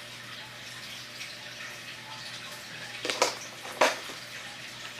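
Unboxed plastic items being handled and set down: two or three sharp clicks and knocks a little past the middle, over a steady background hiss.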